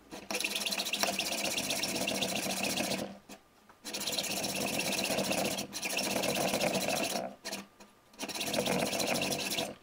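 A power tool working material, run in four bursts of a few seconds each with short pauses between.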